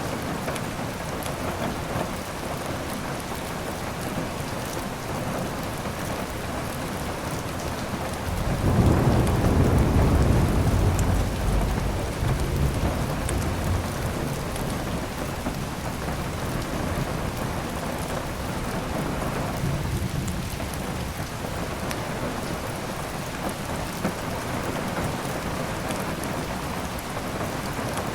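Steady heavy rain falling, with a low rumble of thunder that swells about eight seconds in, peaks for a few seconds and slowly dies away; a fainter rumble comes later.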